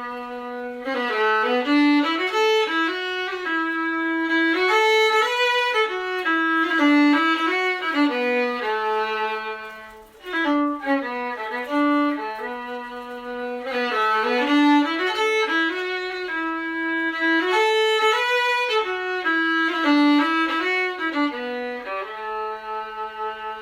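Solo fiddle playing a slow instrumental melody in phrases, with a short break about ten seconds in and a long held note near the end.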